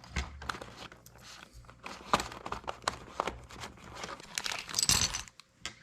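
Plastic keycaps clicking against each other and a plastic bag crinkling as the keycaps are tipped and handled, with a louder rustle about five seconds in.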